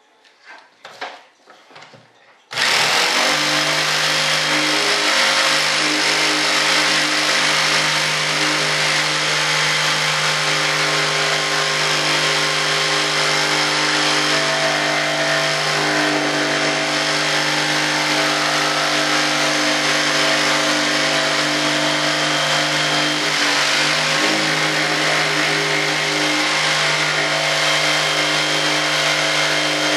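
A handheld jigsaw starts about two and a half seconds in and runs steadily at full speed, cutting through the cured fibreglass edge of a mold layup. A few light knocks come just before it starts.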